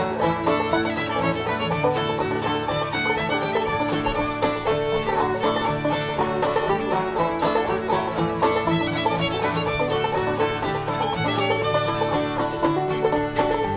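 Background instrumental music in a bluegrass style, with banjo and fiddle over a steady, busy rhythm.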